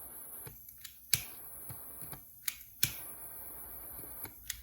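Steady hiss of a mini butane torch heating solder-seal heat-shrink tubing on a wire splice, with a few sharp clicks.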